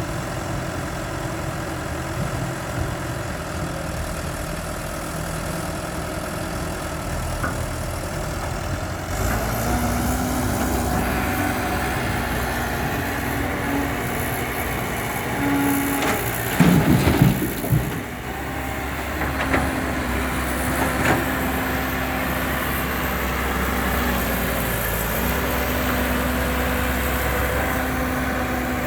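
Heavy diesel earthmoving machine engine running steadily, revving up about a third of the way in, with a loud burst of clattering a little past halfway.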